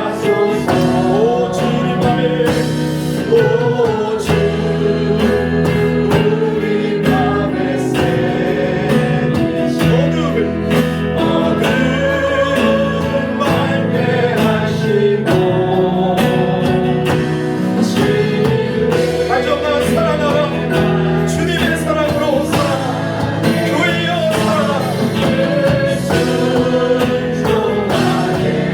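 Church praise team singing a Korean gospel worship song with band accompaniment and a steady beat.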